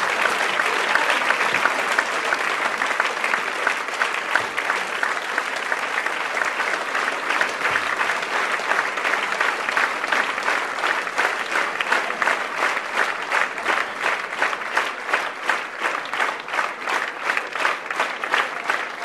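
Audience applauding; the scattered clapping turns into rhythmic clapping in unison, about two to three claps a second, around halfway through.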